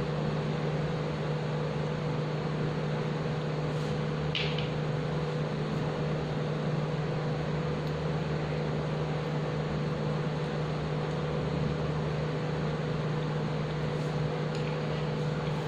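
Steady mechanical hum with a low, even tone, like a running fan or appliance; a faint brief rustle about four seconds in.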